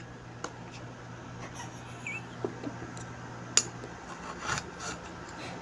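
Kitchen knife slicing carrot on a plate, with a few scattered clicks of the blade tapping the plate, the loudest about three and a half seconds in.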